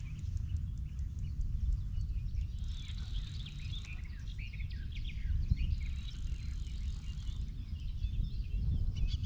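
Songbirds chirping and warbling from the riverbank over a steady low rumble.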